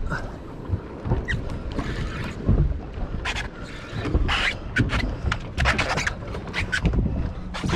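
Wind buffeting the microphone over water sloshing around a small boat, with a run of sharp clicks and knocks from rod, reel and tackle being handled.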